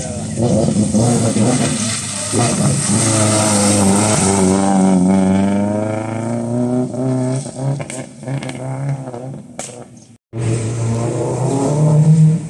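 Rally car engine revving hard, its pitch climbing, then dropping and fading away. After an abrupt cut, another rally car's engine comes in and swells loudest near the end.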